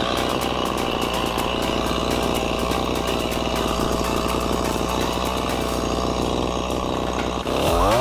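Engine idling steadily with a fast, even pulse, then stopping abruptly near the end.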